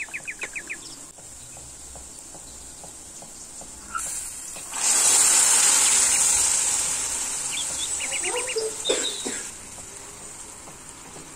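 Liquid poured into a pan of hot frying carrots and onions: a loud hiss starts about five seconds in and dies away over the next few seconds. Small birds chirp in quick trills in the background.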